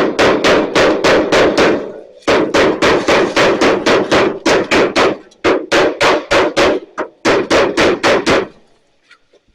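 Rapid hammer blows on the truck's steel, about four a second, in four runs with short pauses between, each blow ringing briefly. They stop shortly before the end.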